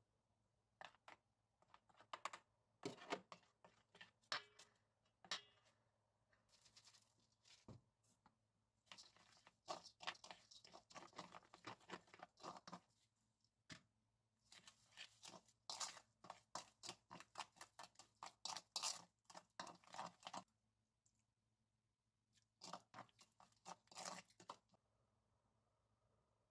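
Wooden spoon stirring and scraping a thick, wet chili-pepper kimchi seasoning paste in a stainless steel bowl, with small clicks of the spoon. It comes in several spells of a few seconds each, with short pauses between.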